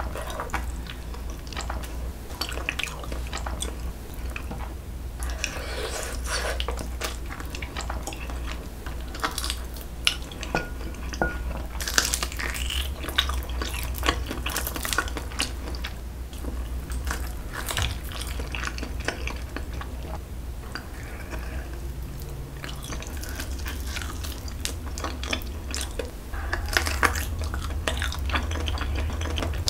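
Close-up wet chewing and smacking of someone eating sticky, chewy jokbal (braised pig's trotter) held in the hands, with many short wet clicks, over a steady low hum.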